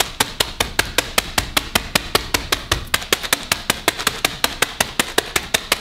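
A fist pounding a zip-top bag of Cheetos on a stone countertop, crushing the puffs. The blows come fast and evenly, about six sharp thuds a second.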